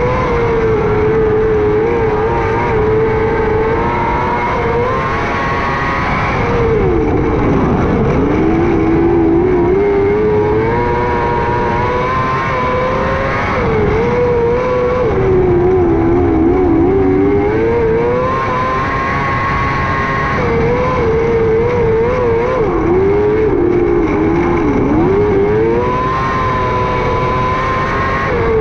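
600cc micro sprint car's motorcycle-derived engine running hard at racing speed. The revs hold high, then drop and climb back again roughly every eight seconds as the car lifts for the turns and gets back on the throttle.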